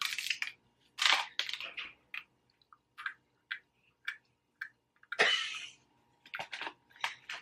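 Close-up chewing and mouth noises as a person bites into and chews a canned sardine, in short irregular bursts, with a louder, longer noise about five seconds in.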